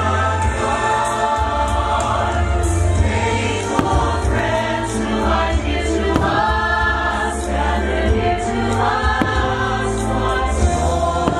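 Choral Christmas music from a fireworks show's soundtrack: a choir holding long sung notes over a steady deep bass, with a few sharp firework bangs over the music.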